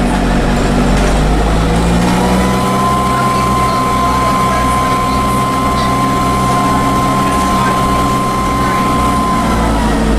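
Dennis Dart bus's Cummins diesel engine running under way, with a steady high-pitched turbo whine that comes in about two seconds in as the engine note rises, holds, and dies away near the end.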